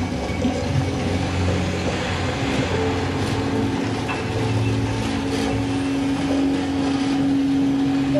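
Free-improvised ensemble music run through live electronic spectral delay and granular processing: a dense, steady drone over a low rumble, with a held tone that grows stronger from about three seconds in.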